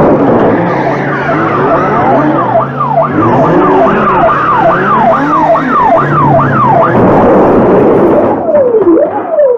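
Police car siren sound effect yelping in quick up-and-down sweeps, about two a second, over a noisy rumble with a low hum. Near the end it switches to a slower, cleaner rising-and-falling wail.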